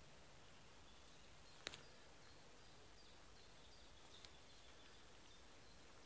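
Near-silent forest ambience: a faint steady hiss with faint, high, short bird chirps here and there. A single sharp click about two seconds in, and a fainter one later.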